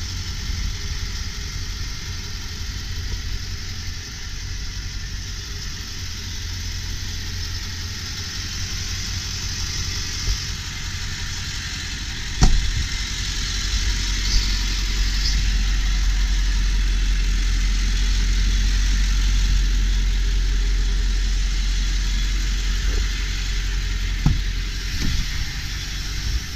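Ford 7.3 L Power Stroke turbo-diesel V8 idling steadily, with a single sharp knock about halfway through, after which the idle is louder.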